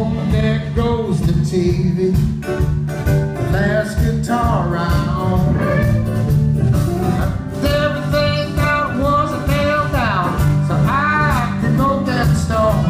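Band music: a country-tinged song with a singer over guitar, bass and a steady drum beat.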